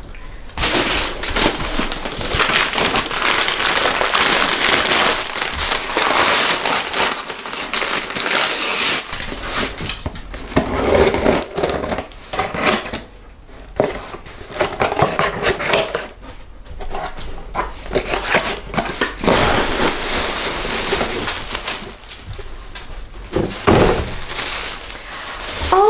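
Cardboard shipping box being slit and pulled open, with irregular crackling and scraping of cardboard and packing tape. Near the end a plastic bag crinkles as the wrapped contents are lifted out.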